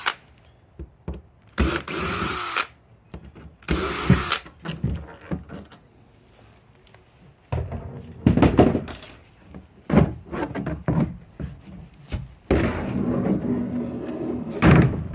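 Power drill-driver running in short bursts, backing out the screws that hold a hot tub's side panel, with a string of knocks and thuds between the bursts.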